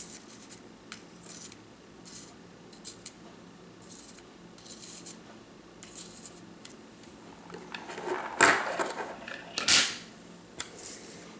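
Small Kwikset lock pins and springs being handled and set down on a surface: faint, scattered light clicks, with a couple of louder knocks about eight and a half and nine and a half seconds in.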